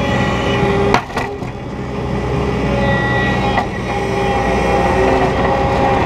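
New Holland 170S skid steer's diesel engine running steadily while plowing snow. There is a sharp clank about a second in, after which the engine note briefly drops and then recovers, and a lighter knock a little past the middle.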